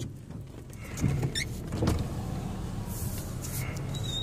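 Car engine idling, heard from inside the cabin as a steady low hum, with a few faint knocks and a short squeak.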